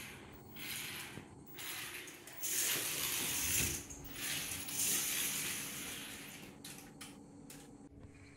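Toy radio-control car's small electric motor and gears whirring in a series of short runs, each about a second long, as it is driven in bursts across a wooden floor. The whirring fades out over the last couple of seconds.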